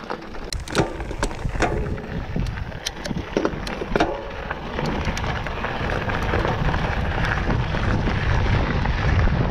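Mountain bike rolling over a gravel track: tyres crunching on loose stones with sharp clicks and rattles from the bike, and wind buffeting the microphone, building to a louder rumble in the second half as speed rises.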